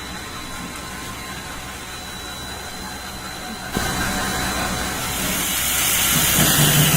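Machinery of a puffed corn snack extrusion line running: a steady mechanical hum and hiss with a faint high whine. It jumps suddenly louder a little under four seconds in and grows hissier near the end.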